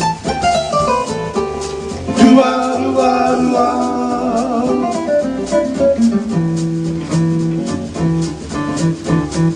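Electronic keyboard music with a man singing over it. A falling run of notes comes in the first second or so.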